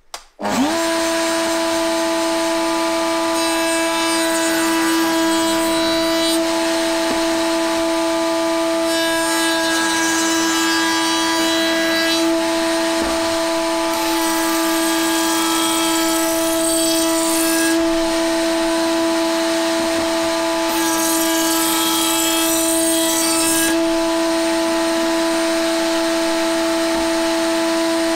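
Router switching on and spinning up, then running with a steady whine. Four times, for about three seconds each, a board is fed past the chamfer bit, adding a rasping cutting noise over the motor.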